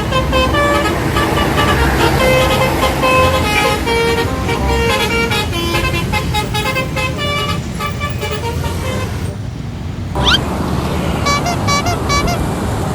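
Telolet multi-tone bus horn playing a quick melody of short stepped notes over the low running of the engine, with a brief rising sweep about ten seconds in.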